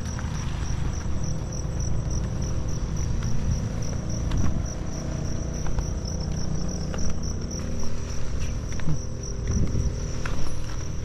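Insects trilling steadily in a rapid, pulsing high note, over a low rumble and a few scattered light clicks.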